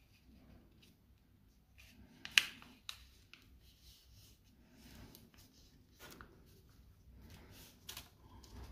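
A sheet of A4 paper being folded and creased by hand: faint rustling and sliding of paper under the fingers, with a sharp tick about two and a half seconds in.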